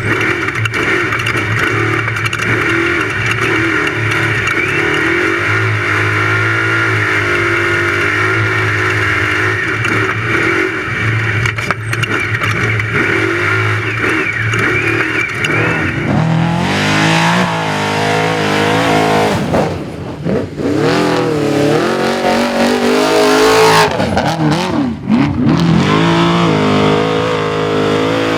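Off-road racing trophy truck's engine running hard. Its pitch holds fairly steady for the first half, then rises and falls repeatedly as the revs change through the second half.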